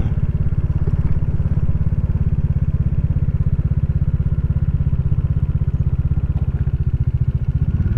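Motorcycle engine running steadily at low revs, with an even rapid pulsing of the exhaust, as the bike rolls slowly in.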